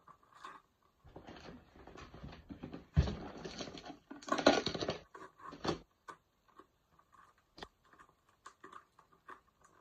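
A cardboard shipping box and paper being handled and opened: irregular rustling and scraping, with a sharp thump about three seconds in and scattered small taps and clicks later.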